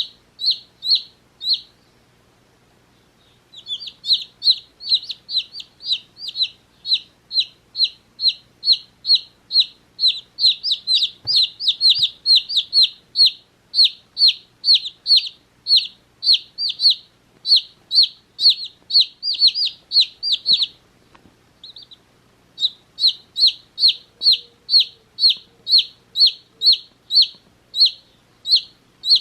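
One-day-old chicks peeping: a steady run of high, short, downward-sliding peeps, about two to three a second, with brief pauses near the start and about two-thirds of the way through.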